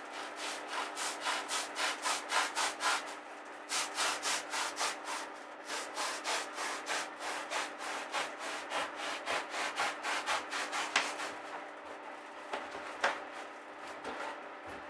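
Block of upholstery foam being cut by hand, a blade sawing back and forth through it in rapid strokes, about three to four a second. The strokes pause briefly about three seconds in and stop a few seconds before the end, followed by a couple of single knocks.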